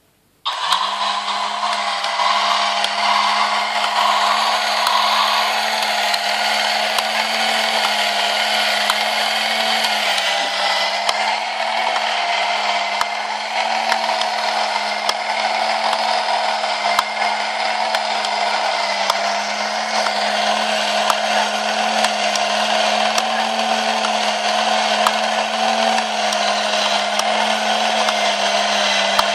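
Clear-plastic Haynes model engine switched on about half a second in, its small electric motor whirring steadily as it turns the crankshaft, valve gear and fan, with light clicking from the plastic parts.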